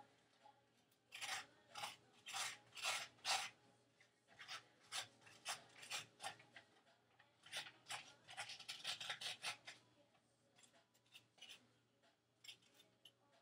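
A tablespoon scraping the seeds and stringy pulp out of a halved raw spaghetti squash: a run of faint short scrapes, one or two a second, thinning out near the end.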